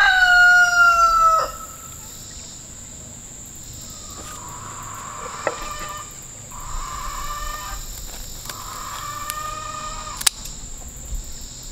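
A rooster crowing: the loud end of one crow, a long held note that slides slightly lower and cuts off about a second and a half in, then three fainter crows from further off, each held for a second or two.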